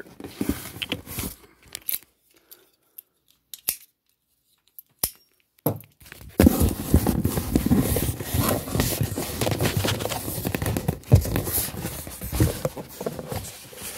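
Cardboard packaging being handled: a few crackles and isolated clicks, then, from about six seconds in, continuous scraping and rustling with small knocks as the black speaker box is shifted against the cardboard shipping box around it.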